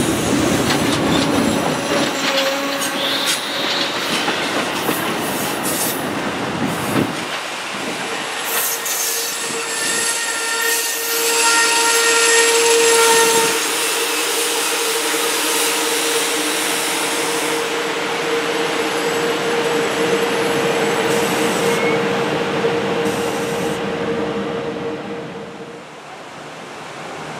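Amtrak Superliner bilevel passenger cars rolling past on steel wheels, with a steady rumble and clatter of wheels on rail. A steady high wheel squeal comes in about a quarter of the way through and holds until near the end, when the sound drops away.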